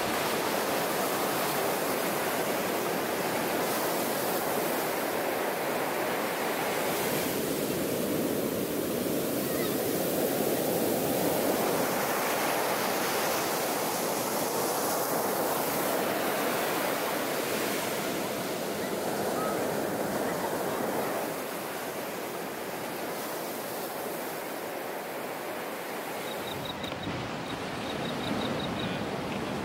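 Ocean surf breaking and washing up the beach: a steady rushing of waves that swells and eases. Near the end it turns softer and duller, with a few faint high chirps repeated in quick runs.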